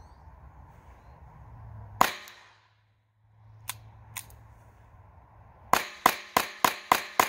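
.22 LR Ruger Mark IV pistol firing: one shot about two seconds in, then two small metallic clicks as the bolt is worked by hand, then a quick string of six shots about a third of a second apart starting near six seconds. The pistol is running Federal lead solid-point rounds, and the hand-worked bolt marks a failure to cycle with that ammo.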